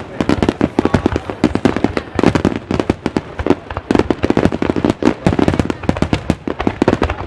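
Fireworks going off in a rapid, continuous barrage: many sharp bangs and crackles a second, overlapping without a pause.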